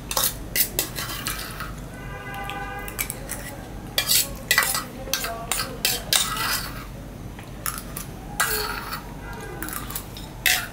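Metal spoon scraping and clinking against a small stainless steel bowl as the last of the food is scooped out, in many short strokes; the bowl rings briefly about two seconds in.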